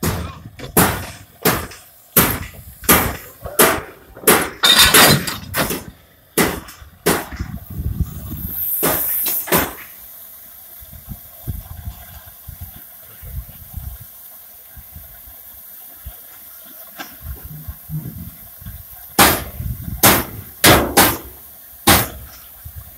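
German-built industrial steam locomotive working, its exhaust chuffing sharply about once every two-thirds of a second for the first seven seconds. A loud hiss of released steam follows around nine seconds in, then a quieter stretch, then a few more chuffs near the end.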